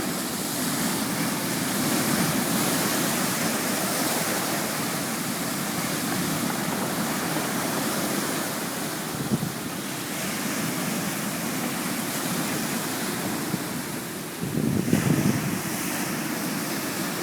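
Sea surf washing on the shore, with wind buffeting the microphone; a louder surge of wash comes about fifteen seconds in.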